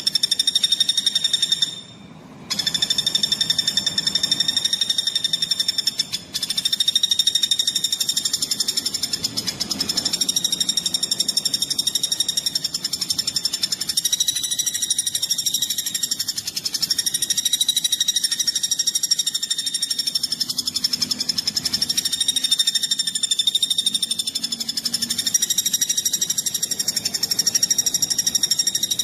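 Rapid, tightly packed bird song: a high, fast trill held almost without pause, with a brief break about two seconds in and a shorter one near six seconds.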